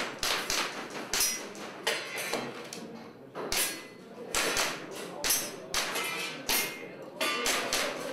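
Airsoft guns firing: about a dozen sharp cracks at irregular spacing, some in quick pairs, each with a short ring after it.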